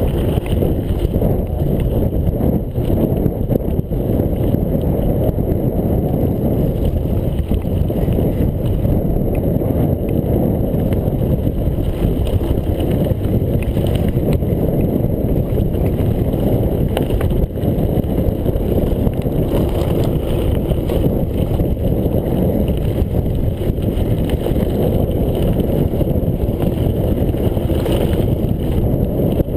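Mountain bike rolling down a loose gravel-and-stone track: a steady rumble and rattle of tyres over stones and the bike shaking, mixed with wind buffeting the chest-mounted camera's microphone.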